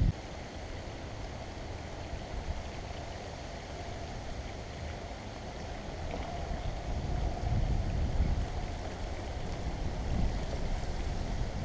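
Wind buffeting the microphone: a low, uneven rumble that grows stronger about seven seconds in.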